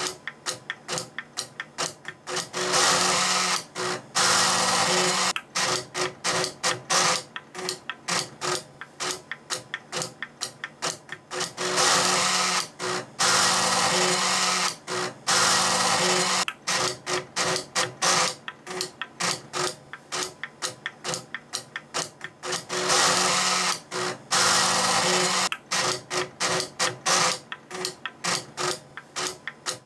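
Mechanical clatter of a printing machine: rapid, steady clicks, broken three times by continuous buzzing runs of a few seconds each.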